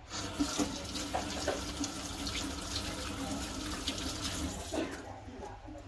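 Water running from a kitchen tap into a sink, a steady splashing rush that stops about five seconds in.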